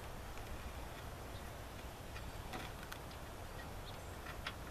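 A few faint clicks and taps as the oil drain plug on a Craftsman LT1000 riding mower's engine is worked loose by hand, a pair about halfway through and another pair near the end, over steady low background noise.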